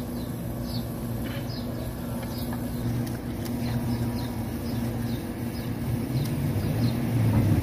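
Steady low hum of an engine running, with short high chirps repeating about once a second.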